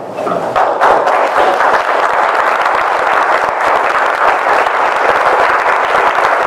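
Audience applauding, setting in about half a second in and holding as steady clapping.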